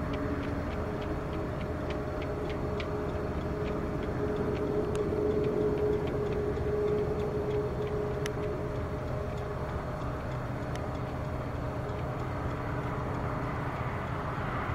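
Jet airliner engines running, a steady rumble with a faint whine that swells slightly midway through. A few faint light ticks are heard in the first few seconds.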